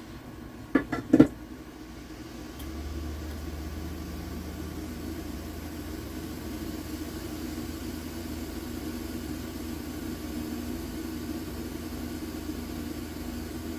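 A couple of sharp clicks about a second in, then a heat gun starts and runs with a steady hum from about two and a half seconds in, heating part of the watch.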